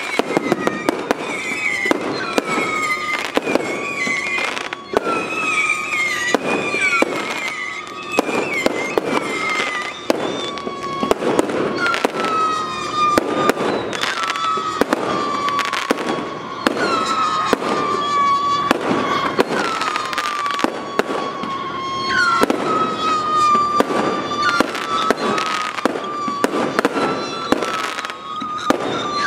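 Aerial fireworks going off in rapid succession: a dense run of bangs and crackling throughout, with whistling tones sliding down in pitch every second or two over the top.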